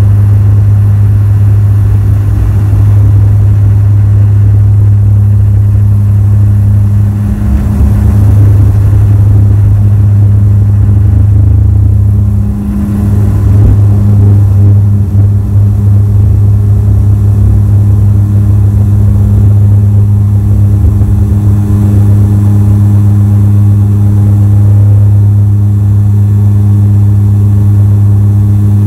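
Bombardier Q400's Pratt & Whitney PW150A turboprop engine and six-bladed propeller at takeoff power, heard from inside the cabin beside the nacelle: a loud, steady deep drone with a higher hum above it, through the takeoff roll and climb-out.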